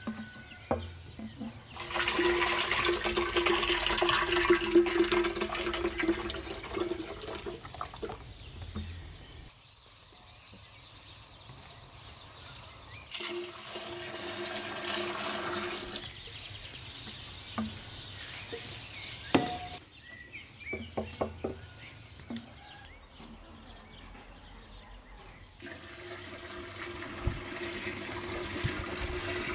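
Liquid poured in a stream into a hollow wooden log butter churn, a rushing splash with a steady hollow tone: a long pour of milk, a shorter one, then hot water near the end. Between the pours come a few sharp knocks and clicks from handling the churn and vessels.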